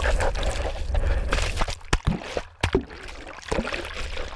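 Underwater churn and air bubbles heard through a submerged camera just after a plunge into the sea: a muffled rushing and gurgling with scattered sharp pops. It is louder for the first couple of seconds, then dies down.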